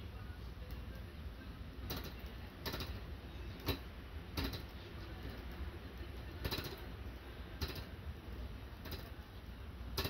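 Small hot-air Stirling engine's crank linkage clicking as its flywheel is turned by hand: short, sharp clicks at irregular gaps of about a second. The glass tubes are still warming, so the engine does not yet keep running on its own.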